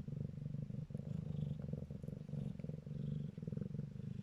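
Calico kittens purring while nursing: a continuous low, rumbling purr that swells and eases about once a second.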